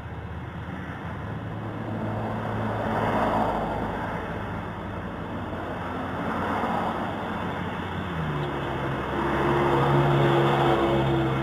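A car engine running close by with a low hum that drops a little in pitch about eight seconds in, over road noise that swells twice, heard through a doorbell camera's thin-sounding microphone.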